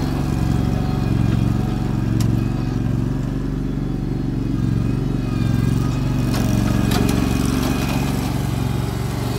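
Hustler riding lawn mower's engine running steadily, with a few light clicks.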